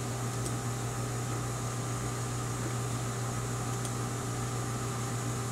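Steady low hum with an even hiss, a machine running in a room, with two faint ticks partway through.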